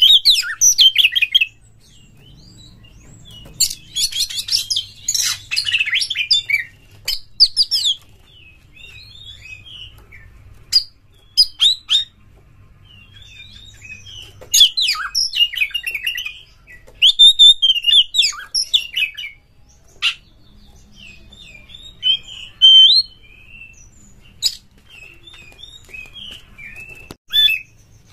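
Oriental magpie-robin singing in loud bouts of quick, varied whistles and chattering notes, with short pauses between bouts.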